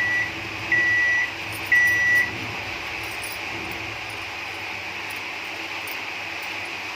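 Microwave oven beeping: three high, steady electronic beeps about half a second long, one a second, in the first two seconds. A steady hum and hiss follows.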